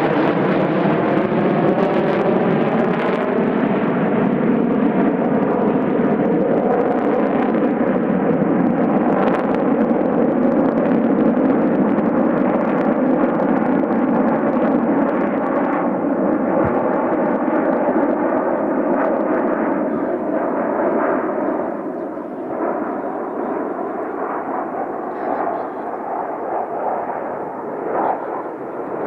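Jet engine noise of a formation of fighter jets flying past: a loud, continuous rushing sound with a slow phasing sweep, easing off a little in the last third.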